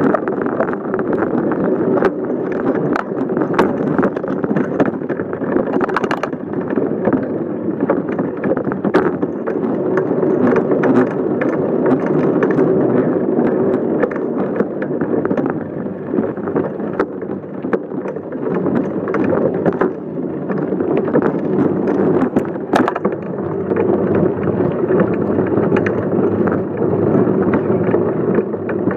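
Bicycle being ridden, heard close to its frame: a steady rumble and rattle from the tyres and frame, broken by sharp knocks from bumps every few seconds.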